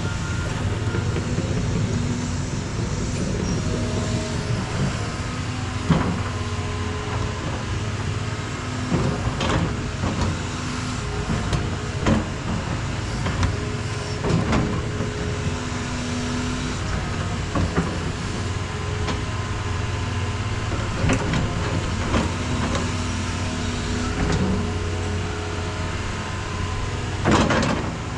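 Heavy equipment's diesel engine running steadily under load, with short tones coming and going over it and scattered metallic clanks and knocks, one of the loudest near the end.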